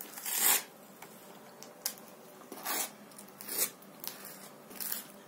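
A table knife scraping across a crisp ridged wafer cake layer as boiled condensed milk is spread on it: about five short scraping strokes, the loudest about half a second in.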